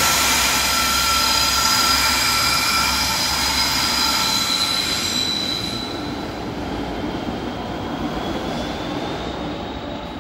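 Departing train's wheels squealing on the curved track over a low rumble, several high steady tones at once. The squeal and rumble fade as the train pulls away and die down about six seconds in, leaving a faint high tone.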